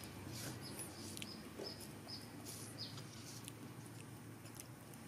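A few faint, short high-pitched chirps in the first three seconds, with a few small clicks over a quiet background.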